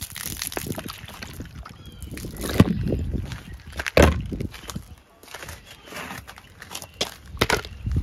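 Footsteps and irregular knocks and thuds of someone letting chickens out of their coop, with chickens making faint short calls in between; the loudest knocks come about 2.5 s, 4 s and 7.5 s in.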